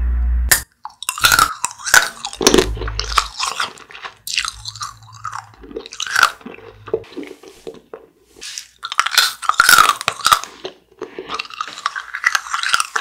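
Close-up crunching and chewing of a small hard candy piece, crisp bites coming in irregular clusters. A low rumbling sound effect cuts off abruptly about half a second in, before the crunching starts.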